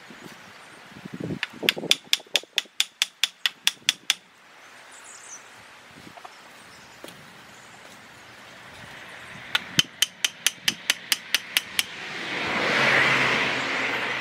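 Two runs of about a dozen quick, sharp clicks, about five a second, from fastening chicken-wire mesh to its metal fence posts. Near the end a rush of noise swells and fades.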